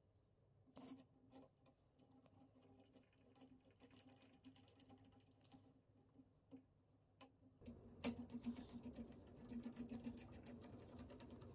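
Light clicking and metallic ticking from steel drawer slides being handled and fitted, with one sharp loud click about eight seconds in. A screwdriver then turns a screw into the slide, giving a quick run of small ticks.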